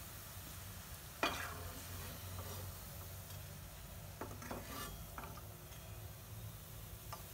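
Kofta balls frying in hot oil in a non-stick kadai, a faint steady sizzle, with a metal slotted spoon knocking and scraping against the pan as the balls are scooped out. The sharpest clink comes about a second in, with several more around four to five seconds.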